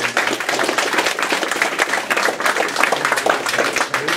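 A small crowd clapping and applauding, dense and fast, with a few voices mixed in.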